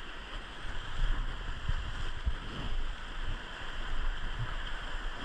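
Steady rush of river water around a raft, with uneven low rumbling underneath.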